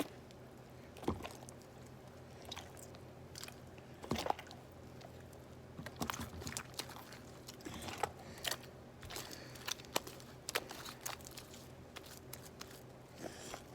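Sticky glue-and-borax slime being kneaded and pulled by hand, giving irregular wet clicks, pops and squelches. The slime has just had borax activator added and is still tacky, starting to come together.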